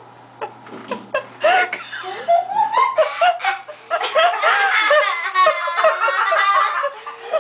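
People laughing hard, starting from a few quiet sounds and building about a second and a half in into loud, continuous laughter that turns high-pitched for a while.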